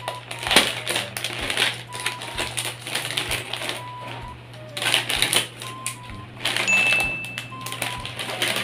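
Small scissors snipping open a plastic bag of Chippy barbecue corn chips, then the bag crinkling and rustling as it is pulled open and handled, with sharp crackles throughout.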